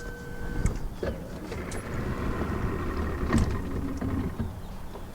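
Boat's outboard motor cutting out about half a second in, then an electric motor whirring for a few seconds. The engine has stalled, which the driver thinks is from running out of gas.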